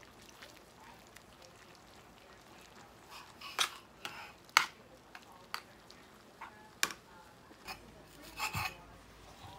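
A metal spoon stirring and scraping a thick, wet ground-meat mixture in a large stainless steel pan, with scattered sharp clinks of the spoon against the pan. Near the end, a short run of knife cuts on a cutting board.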